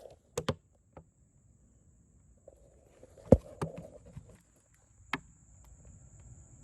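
A few sharp knocks and clicks from tools and parts being handled while a new transmission is fitted to a 49cc dirt bike, the loudest about three seconds in.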